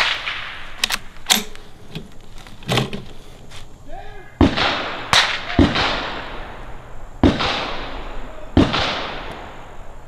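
Gunfire on a shooting range: a loud shot right at the start, then about ten more sharp reports at uneven intervals, each trailing off in an echo.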